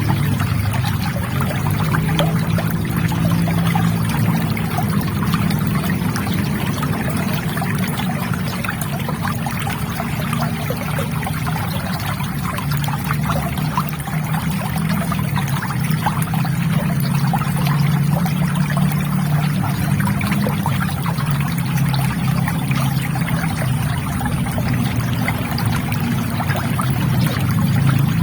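River water flowing and trickling in a steady, continuous burble with a low rushing undertone.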